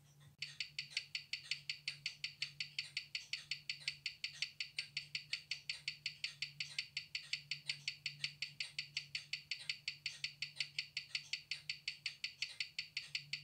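Certina DS-2 automatic watch's escapement ticking at 19,800 beats per hour, about five and a half even ticks a second, amplified through a Weishi No. 1900 timegrapher's speaker over a low steady hum. The ticks start about half a second in. The machine reads +1 s/day, 255° amplitude and 0.0 ms beat error: the serviced movement is running well and in beat.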